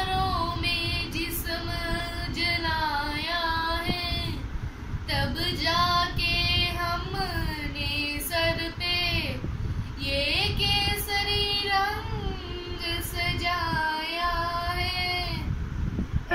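A young girl singing a melody unaccompanied, in phrases with short breaks for breath between them.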